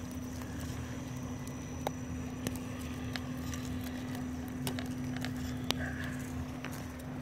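RC rock crawler's electric motor and gearbox whining steadily as the truck crawls over the dirt bank, with a few sharp clicks and ticks from the tyres and chassis on twigs and stones.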